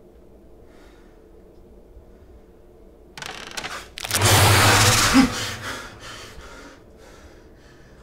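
Horror-film sound effect as the soot monster appears: faint low room tone, then about three seconds in a sudden loud hiss with a deep rumble underneath, peaking a second later and fading over the next two seconds.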